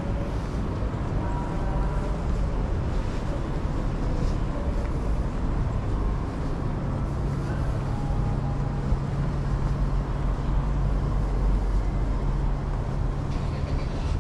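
Steady city traffic noise from the road beside the sidewalk. A low, steady engine hum joins about halfway through.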